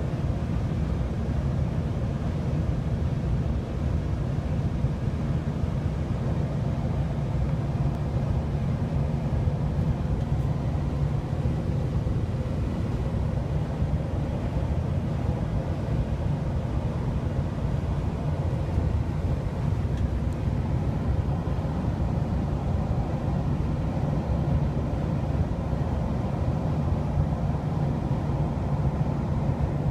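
Steady low road rumble inside a moving vehicle's cabin at highway speed: tyre, engine and wind noise with no sharp events.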